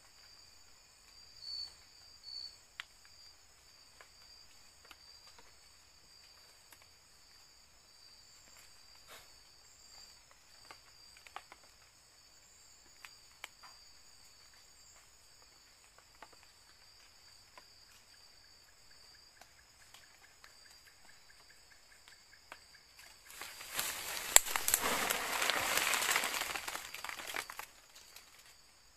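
A steady high insect chorus, with small scattered rustles and snaps from undergrowth. About 23 seconds in comes a loud rustling of leaves and branches lasting about four seconds as a thin tree is climbed and shaken.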